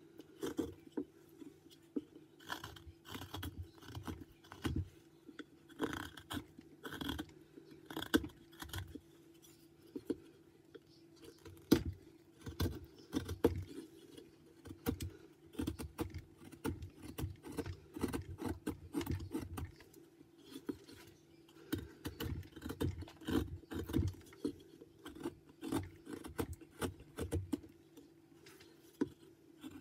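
Carving knife slicing and paring white pine by hand, an irregular run of short scraping cuts, several a second, over a steady low hum.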